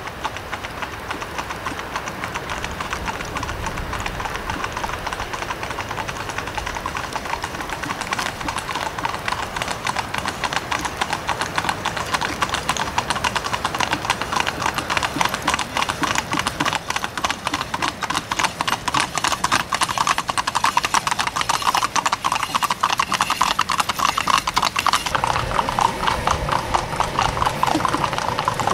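Hooves of a team of spotted ponies trotting in harness on a tarmac road: a quick, continuous clip-clop of many hoof strikes.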